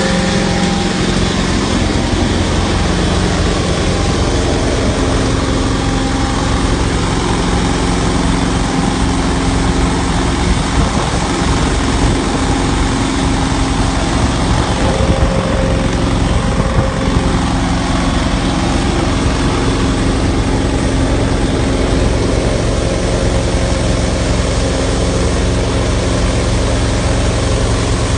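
Truckmount carpet-cleaning unit's 20-horsepower Kohler engine running steadily at a constant speed.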